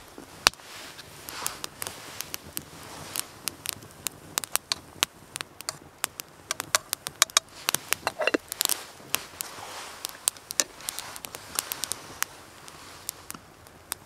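Wood fire in a small twig stove crackling, with many sharp irregular pops. About eight seconds in there is a brief falling squeak as a spoon stirs the coffee in the metal kettle.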